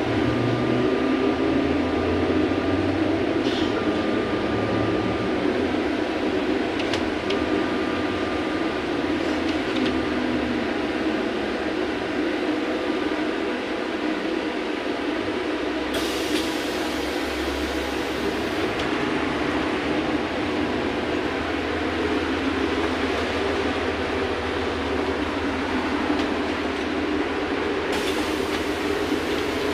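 Cabin noise of a VMZ-5298-20 trolleybus on the move: a steady hum and rumble, with a thin steady whine through roughly the first half.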